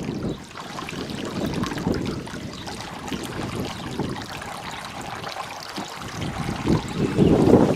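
Water trickling and splashing steadily down a small pump-fed garden waterfall feature. Low gusts of wind buffet the microphone near the end.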